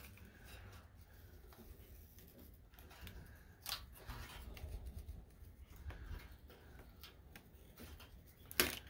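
An old decal being slowly peeled by hand off a mower deck, its glue softened with a heat gun: faint crackling and scraping, with two sharper clicks, the louder one near the end.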